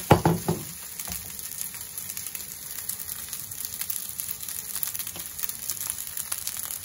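Fried rice with prawns and peas sizzling and crackling in an enamelled pan while a wooden spoon stirs it. A few loud knocks and scrapes of the spoon against the pan in the first half-second.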